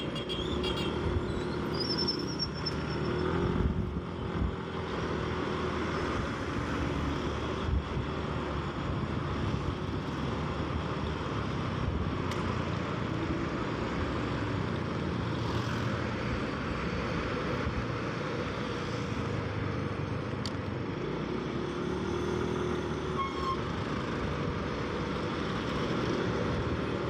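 Steady motorcycle riding noise in city traffic: engine, wind and road noise, with surrounding cars and jeepneys.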